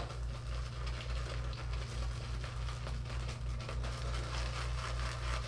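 Badger-hair shaving brush whipping lather in a ceramic shaving scuttle: a soft, fast crackling swish of many fine ticks, over a steady low hum.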